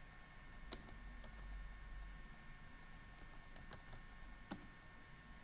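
A few faint, scattered computer keyboard keystrokes, about six separate clicks, over a low steady hum.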